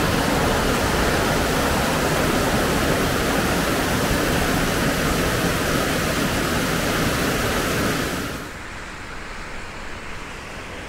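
Water rushing and splashing over boulders in a rocky mountain stream, a loud steady roar of white water. About eight seconds in it cuts abruptly to a much quieter steady hiss.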